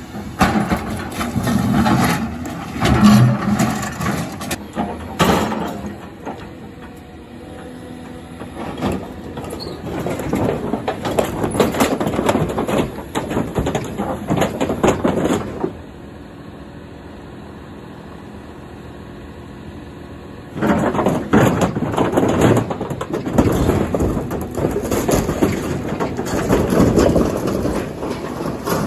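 Caterpillar excavator demolishing a building: metal siding, roof panels and debris crashing, scraping and clattering in its bucket and thumb over the excavator's running diesel engine. About halfway through the crashing stops for some five seconds and only the engine is heard, then the tearing and clattering start again.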